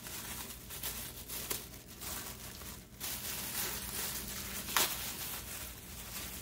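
Thin clear plastic packaging bag crinkling and rustling as it is squeezed and opened by hand, with one sharper crackle nearly five seconds in.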